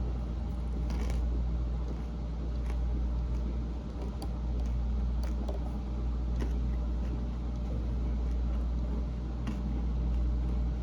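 A person chewing tough, overcooked steak, heard as faint scattered mouth clicks over a steady low hum.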